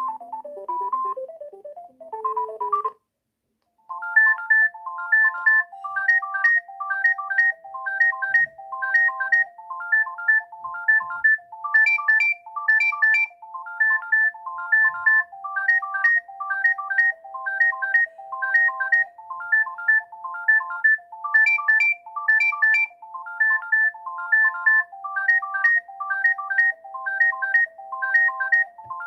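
Alcatel OT-153 mobile phone playing its built-in electronic ringtones. One melody ends about three seconds in, and after a brief silence another begins: a fast, evenly repeating pattern of short beeps that alternate between a few pitches.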